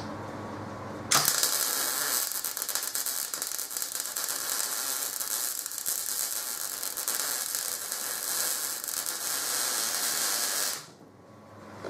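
Electric arc welding: a dense, steady crackle that starts abruptly about a second in and cuts off sharply near the end, as one weld run is laid.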